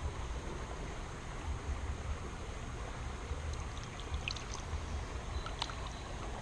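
Creek water running steadily, with a low rumble underneath and a few faint, short, high ticks a little past the middle.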